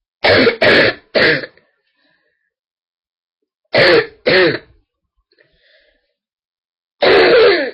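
A woman's deep, barking coughs from a bad throat: three in quick succession, two more about four seconds in, and one longer cough near the end.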